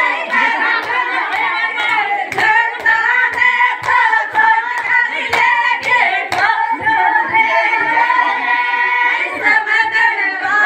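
A group of women singing a Gurjar folk song together, with hand claps keeping a steady beat about twice a second.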